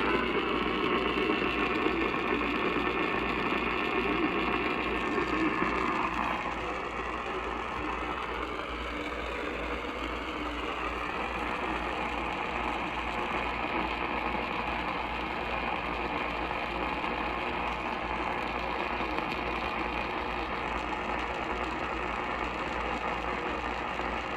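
Buzzing, crackling static from a weakly received broadcast, louder for about the first six seconds and then steady, over a pulsing low hum.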